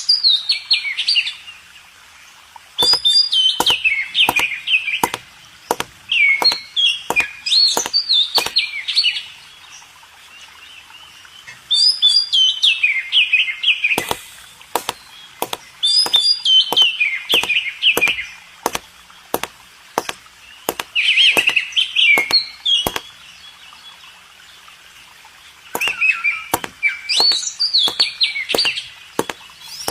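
A bird singing repeated phrases of quick descending chirps, each phrase about two seconds long with pauses between, with sharp clicks among them.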